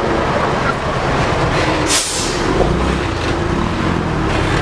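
Heavy diesel trucks, a dump truck and a Mitsubishi Fuso, driving past close by with their engines running steadily. A short hiss of air comes about two seconds in.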